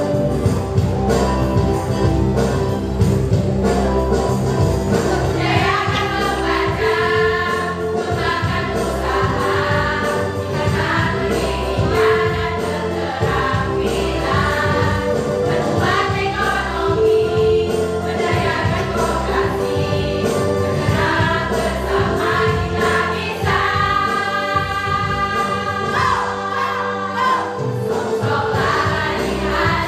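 A jingle sung by a choir of voices in unison over a backing track; the instruments play alone at first and the singing comes in about five seconds in.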